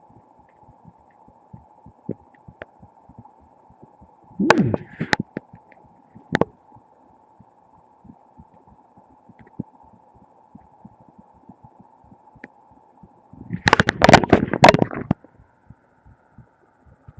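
Taps on the head picked up through the skull by a microphone pressed against the body: dull knocks and rubbing, a short burst about four and a half seconds in and a longer flurry near the end, over a faint steady hum and small clicks.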